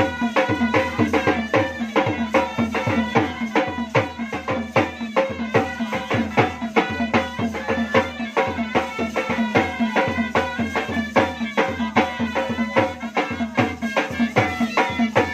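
Indian banjo party band playing live: drums beat a fast, steady rhythm under an amplified melody line and a steady drone.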